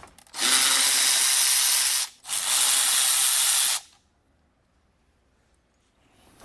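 Aerosol spray can hissing in two long bursts of about a second and a half each, with a short break between them, then cutting off to near silence.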